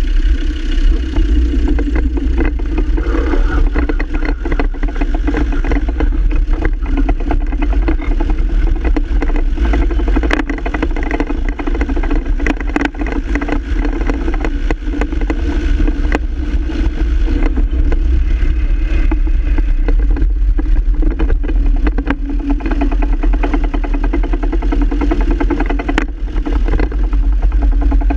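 Land Rover Defender Td5's five-cylinder turbodiesel running steadily, with an irregular clatter of clicks throughout. The clatter is the rattle of the double-cardan propshaft joint.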